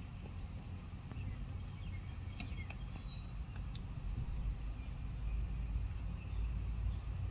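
Birds chirping, with short quick calls and falling whistles, over a low steady rumble; a couple of light clicks come about two and a half seconds in.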